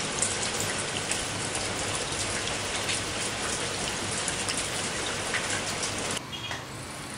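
Guava jam mixture boiling hard in a stainless steel pot: a dense, steady crackle of bursting bubbles. It cuts off abruptly about six seconds in, giving way to a quieter hiss.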